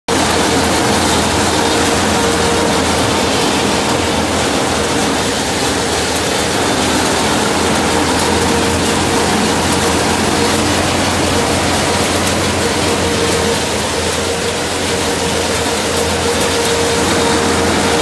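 Small tractor-drawn corn harvester working through standing corn: the tractor engine and the machine's picking rollers and stalk chopper running steadily, a dense mechanical din with a constant hum.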